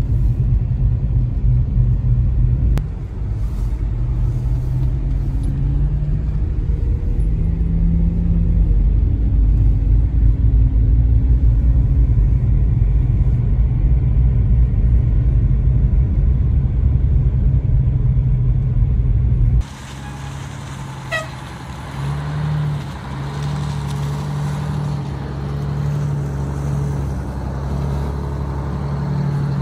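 A large diesel bus engine running on the move, with a heavy low rumble. About twenty seconds in the sound changes abruptly to a quieter, steady engine drone.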